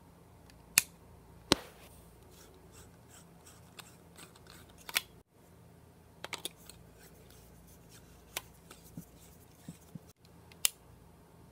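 Sharp clicks and light scraping as a Panasonic spiral compact fluorescent bulb's screw base is turned in a lamp socket.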